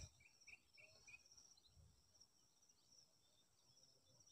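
Near silence: faint background room tone with a steady, high-pitched chirring and a few faint chirps in the first second.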